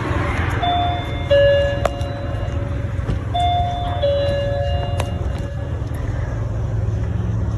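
Two-tone doorbell chime rung twice, each time a higher note falling to a lower, ringing one, over a steady low rumble.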